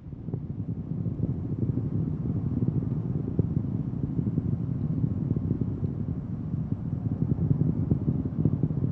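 Falcon 9 first stage's nine Merlin engines firing in flight: a low, crackling rumble that swells just after the start and then holds steady.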